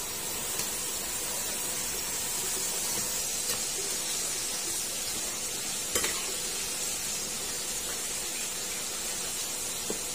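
Flour-coated crab pieces deep-frying in a wok of hot oil, a steady sizzle. A metal ladle clinks against the wok now and then, most sharply about six seconds in.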